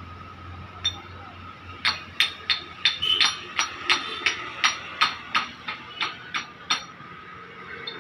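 Hammer striking steel: one ringing blow about a second in, then a quick run of ringing metal blows at about three a second that stops shortly before the end.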